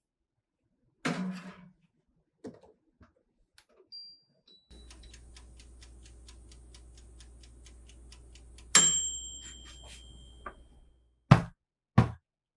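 A kitchen appliance beeps twice from its control panel, then runs with a steady low hum and a fast, even ticking of about five ticks a second. Partway through comes a loud metallic clank that rings on briefly, the hum stops, and three sharp knocks follow near the end.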